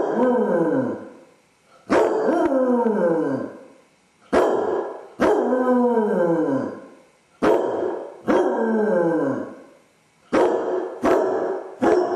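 Basset hound baying: about eight or nine loud, drawn-out howling barks in a row, each starting suddenly and falling in pitch. Left home alone, the dog is showing separation anxiety.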